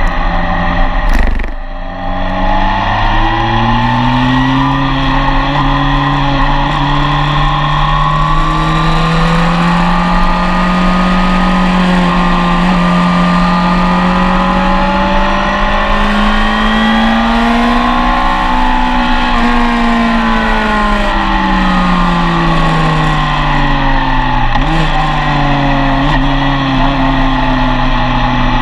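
Yamaha FJR1300's inline-four engine under load at track speed, heard from the tail of the bike over steady wind rush. The engine note rises and falls smoothly through the corners. There is a sharp break about a second in, after which the note starts low and climbs, and near the end the pitch falls, then jumps back up, as on a downshift.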